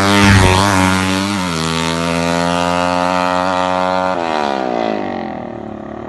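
Tuned 325 cc Yamaha MX drag motorcycle's single-cylinder engine at full throttle on a run. Its high note drops about a second and a half in as the bike passes. It holds steady, then falls away and fades from about four seconds in as the bike recedes.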